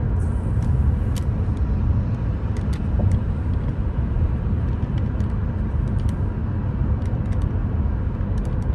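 A moving car's road and engine noise: a steady low rumble, with faint scattered ticks throughout.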